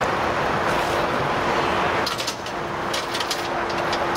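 A vehicle engine running steadily, a constant hum with one pitched tone, with a quick run of light clicks about two seconds in.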